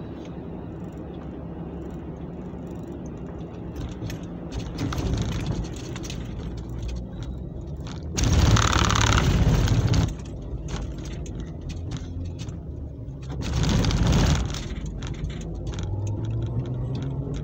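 Car heard from inside the cabin rolling slowly down a ferry's ridged steel vehicle ramp. The tyres rumble loudly over the metal ramp plates for about two seconds around the middle, and again briefly a few seconds later.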